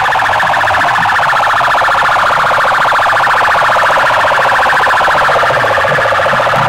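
Stacked horn loudspeakers of a competition sound rig blasting a loud, alarm-like warbling tone with a very fast pulse.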